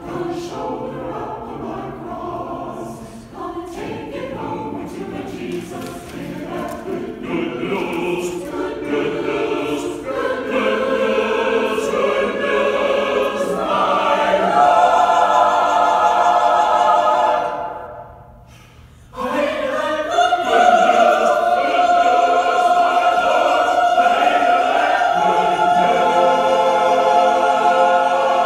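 Mixed choir singing unaccompanied, growing louder, breaking off briefly about two-thirds through, then coming back in on a loud held chord.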